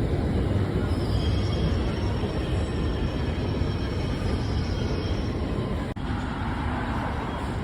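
London Underground District Line train running: a steady rumble of wheels on the rails, with a brief break about six seconds in.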